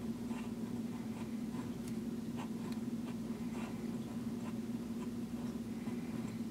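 The flexible 14k gold nib of a vintage Waterman 754 fountain pen scratching lightly on Rhodia paper in short, irregular strokes as script is written, over a steady low hum.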